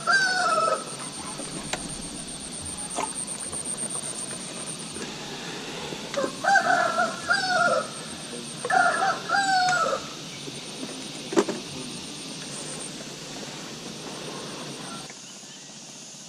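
A rooster crowing: one crow ends just as the sound begins, then two more come about six and nine seconds in, each with a drop in pitch at the end. A steady high whine runs behind the crows until about ten seconds in, and a single sharp click comes about eleven seconds in.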